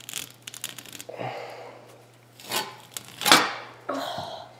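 A hand saw rasping through a solid rubber lacrosse ball in short, uneven strokes. The two loudest strokes come a little past the middle.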